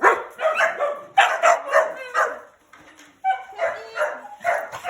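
Dogs barking repeatedly in quick runs, with a pause of about a second just past the middle.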